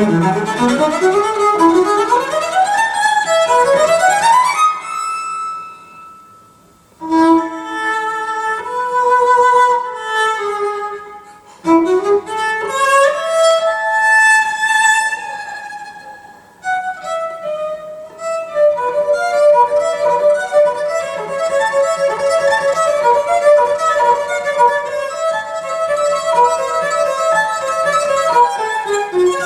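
Solo cello recording played back over hi-fi loudspeakers: fast rising runs, two short breaks, then longer singing lines.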